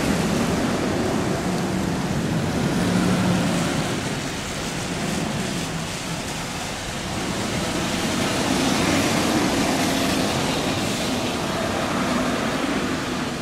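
Road traffic on a wet street: steady tyre hiss and engine noise from passing vehicles, dipping for a few seconds before swelling again.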